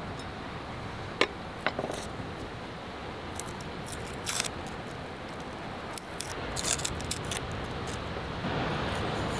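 Sharp clicks of a chef's knife set down on a wooden chopping board, the loudest about a second in, then the dry crackle of a garlic clove's papery skin being peeled by hand in short bursts. Under it all runs a steady wash of sea surf and wind.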